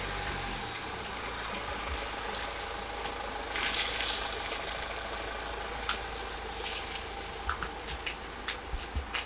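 Car engine running nearby, its low hum fading within the first second, under a steady wash of traffic noise. A brief burst of noise comes about four seconds in, and a run of light clicks and taps comes near the end.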